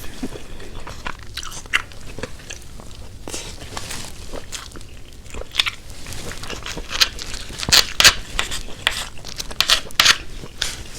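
Close-miked eating: a person chewing a mouthful of food with irregular wet clicks and crunches. The clicks come thicker and louder in the second half.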